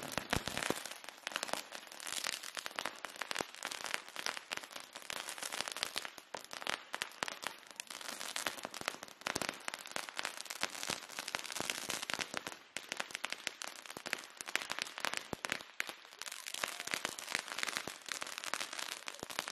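Several ground firework fountains spraying sparks, giving a dense, rapid crackling with no break.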